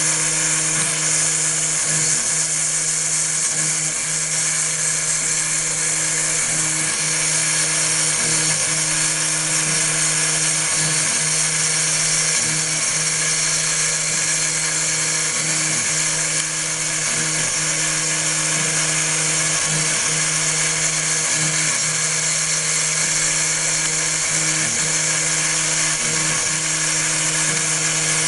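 Homemade CNC milling machine running an engraving job: the spindle gives a steady high whine over a low electrical hum, with small irregular changes every second or two as the cutter moves.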